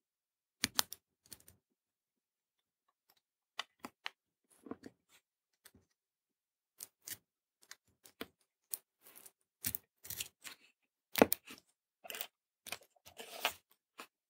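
Metal tweezers clicking and scratching at a small paper strip of surface-mount resistors, picking the packaging open. Scattered sharp clicks start about half a second in, come faster in the second half, with one louder snap and a short scratchy rustle near the end.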